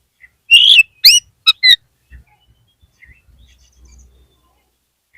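Oriental magpie-robin (kacer) song: a short phrase of loud, sharp whistled notes about half a second in, some sweeping steeply upward, lasting about a second and a half, followed by only faint scattered notes.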